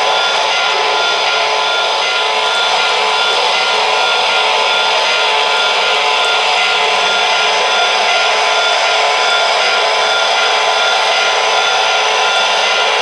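O-gauge model train, a Lionel scale PRR S2 turbine locomotive hauling passenger cars, running past on three-rail track. The wheels and drive make a loud, steady rolling noise, with a thin steady whine over it.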